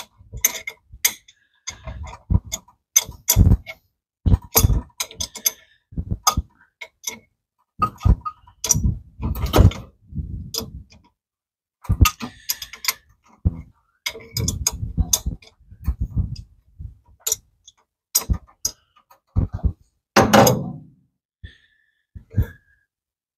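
Adjustable wrench and pliers working on the water temperature gauge's sensor fitting in the engine block. Irregular metallic clicks, knocks and scrapes as the tools are repositioned and the fitting is turned out, with one louder, longer clatter near the end.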